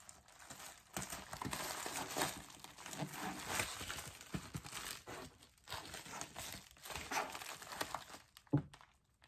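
Plastic padded mailer crinkling and rustling as hands press seal stickers onto it and smooth it flat, with a sharp knock near the end.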